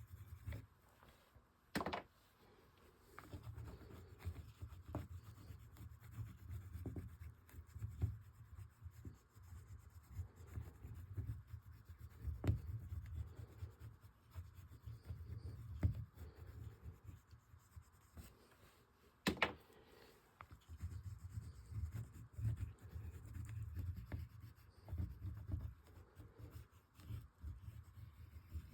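Oil pastels rubbing and scratching across paper in repeated strokes, with short pauses and two sharp clicks, about two seconds in and near the middle.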